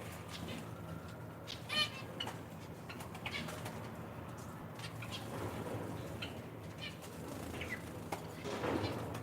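Small captive finches in an aviary room: scattered short chirps and calls, one louder call about two seconds in, and wings fluttering around the middle and again near the end, over a low steady hum.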